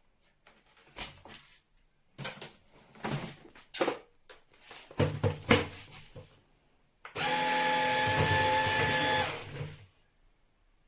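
Plastic clicks and knocks of a Stanew 22.2V cordless vacuum cleaner being handled, then its motor switched on and running steadily with a whine for about two seconds before it stops.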